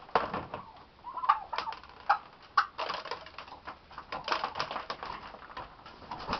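Wild turkeys at close range: scattered sharp taps and clicks on wood, with a few short soft calls.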